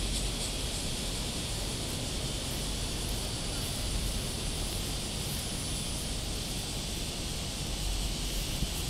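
Cicadas calling in a noisy, steady, unbroken chorus, with a low rumble underneath.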